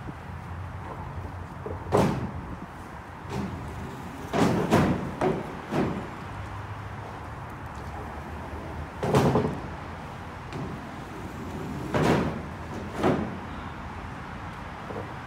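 Pressure-treated lumber boards knocking and scraping as they are slid one by one into a pickup truck's bed. Separate wooden clunks come at irregular gaps: a quick run of them about four to six seconds in, and the loudest single knocks near the middle and toward the end.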